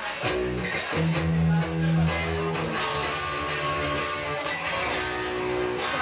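Live rock band playing without vocals: electric guitar strumming chords over bass guitar and drums.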